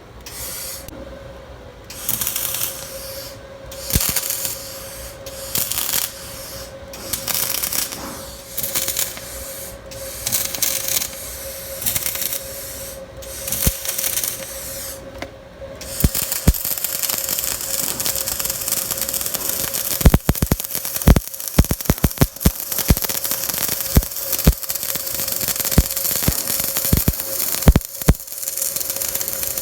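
Welding a hole shut: short bursts of arc hiss about once a second, then a longer continuous crackling weld from about halfway through, with sharp pops and clicks.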